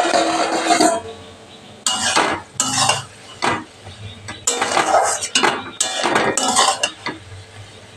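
Metal spatula scraping and stirring soya chunks around a metal kadai, in a run of irregular scraping strokes with short pauses between them.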